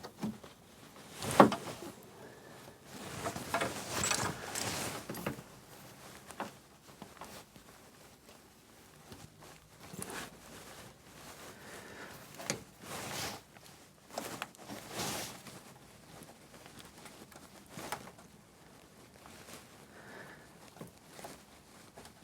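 Scattered knocks, clinks and scraping of hand work fitting a gearbox mounting's rubber blocks, plate and bolts, with one sharp knock about a second and a half in.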